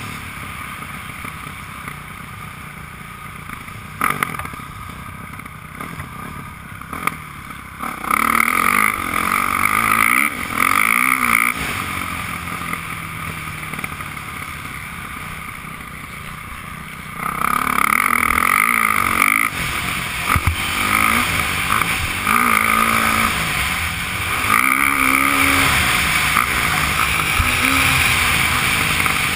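Motocross dirt bike engine heard through a helmet-mounted camera while riding the track, revving hard in bursts of throttle and dropping back between them. Loud runs come about eight seconds in, again near seventeen seconds, and from about twenty-four seconds, with quieter off-throttle stretches between and a few sharp knocks in the first seconds.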